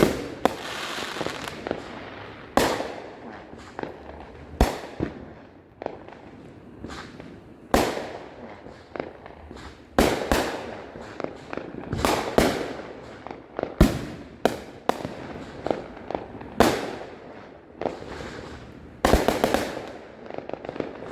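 Consumer fireworks going off around the neighbourhood: a steady run of sharp bangs and firecracker reports every one to three seconds, some trailing off in crackle, with a quick cluster of shots near the end.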